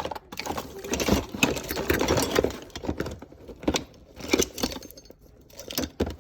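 Hands rummaging through loose wires and small metal parts, giving a run of irregular clicks, clinks and rattles.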